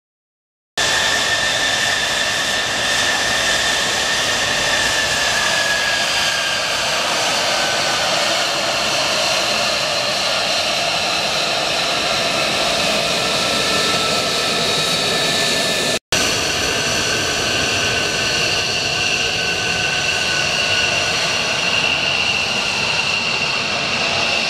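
The F-35A Lightning II's single Pratt & Whitney F135 turbofan running at taxi power as the jet moves along the taxiway. Several high whining tones sit over a steady rushing roar, one of them sinking slightly in pitch over the first several seconds. It starts abruptly about a second in and breaks off for an instant about sixteen seconds in, where the recording is cut.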